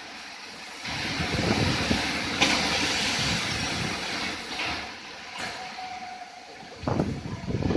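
Thunder rolling over a steady rush of storm rain and wind. A long rumble builds about a second in, with a sharp crack in the middle, fades, and a shorter burst of rumble comes near the end.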